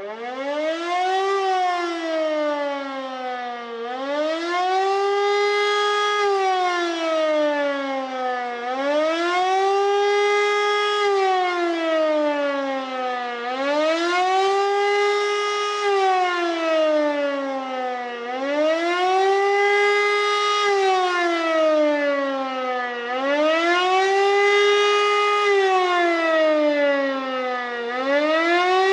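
Civil defence siren sounding the German warning signal, a rising and falling wail that swells and sinks about every five seconds. It is the nationwide Warntag test alarm.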